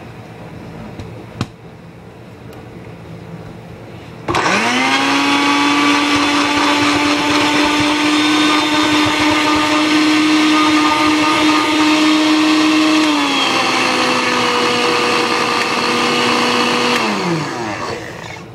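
Small personal blender, Magic Bullet type, blending frozen strawberries and banana: its motor starts suddenly about four seconds in, spins up to a steady whine, dips a little in pitch later on, then winds down and stops near the end.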